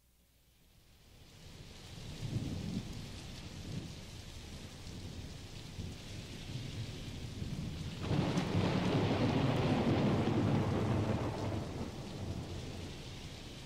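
Recorded rain and thunder: a steady hiss of rain swells in, with a low rumble of thunder about two seconds in and a heavier, longer roll of thunder about eight seconds in that slowly fades.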